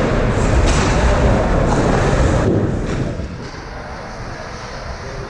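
Ice-rink ambience: a steady rushing noise, heavy in the low end, that drops in level about two and a half seconds in.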